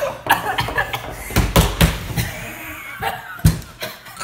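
Children coughing and gasping in several short, loud bursts, reacting to the burn of 2X spicy chicken ramen.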